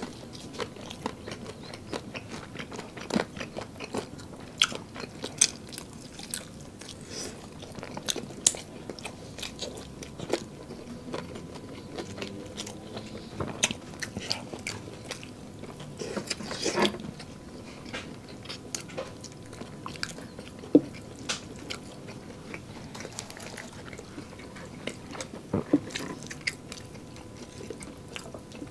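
People biting and chewing crispy breaded fried chicken and chicken nuggets, the crust crunching and crackling in irregular bites, with a thicker run of crunches about halfway through.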